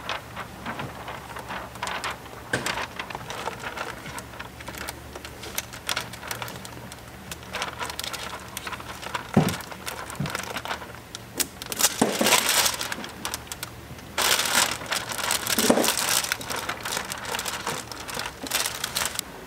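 A large sheet of ceramic window tint film crinkling and crackling as it is handled and slid over a wet windshield. It comes in irregular bursts with sharp clicks, loudest past the middle.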